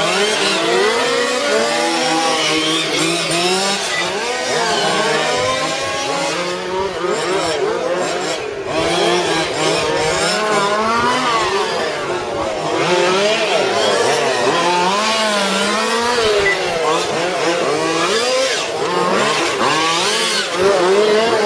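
Motors of several radio-controlled racing cars revving up and down together, their pitch rising and falling constantly as they race around a track.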